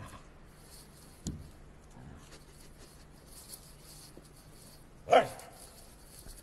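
A dog barking: one loud, sharp bark about five seconds in, with a shorter bark at the very start and a brief knock a second in.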